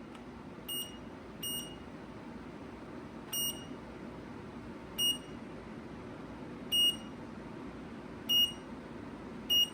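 Seven short single electronic beeps at uneven intervals of one to two seconds, over a steady rush of air.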